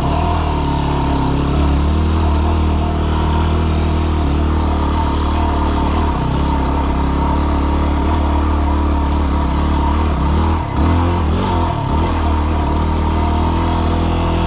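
Yamaha WR250R's single-cylinder four-stroke engine running steadily under way on a dirt road. The engine note dips briefly a little past ten seconds in, then wavers in pitch over the next second or so.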